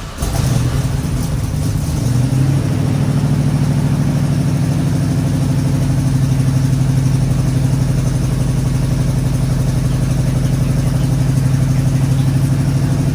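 Oldsmobile 307 V8 of a 1986 Cutlass 442 just after starting, settling into a steady, even idle. With the exhaust manifold leak sealed and new piping fitted, it runs quiet and smooth on a stock exhaust.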